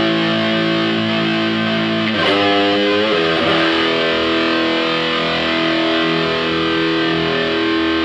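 Electric guitar with a humbucker pickup loaded with neodymium bar magnets, played through an amp. It lets a chord ring, bends the strings with wavering pitch about two seconds in, then lets a chord ring on steadily.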